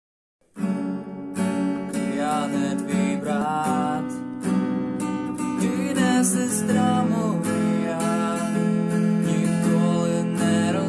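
Steel-string acoustic guitar strummed in chords, starting suddenly about half a second in, with a man singing over it.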